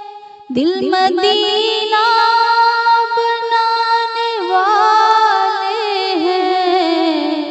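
A naat sung in a high voice. A held note fades out at the start, and after about half a second a new phrase begins, ornamented with quick pitch glides and long sustained notes.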